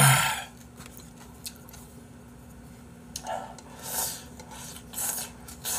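A person slurping from a bowl of soup in several short noisy sips, about three seconds in and after. A loud short sound from the mouth comes right at the start as the bowl is lowered.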